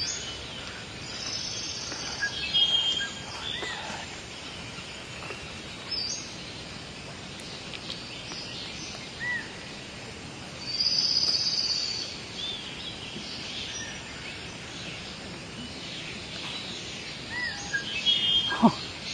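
Rainforest birds calling over a steady background of forest noise: scattered short chirps and whistles, a longer buzzy call about eleven seconds in, and a cluster of louder calls near the end.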